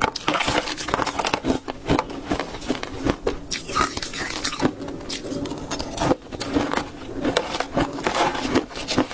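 Frozen matcha ice being bitten and chewed close to the microphone: a dense, continuous run of crisp crunches and crackles.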